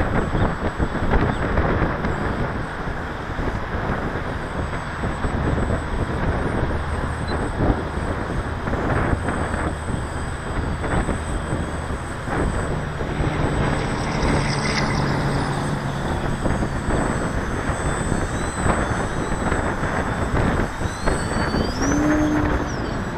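Gusty wind buffeting the microphone, with the faint whine of a small RC model airplane's motor rising and falling in pitch as the plane flies past.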